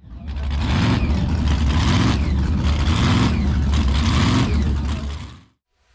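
Loud motor-vehicle engine running and revving, fading out about five seconds in.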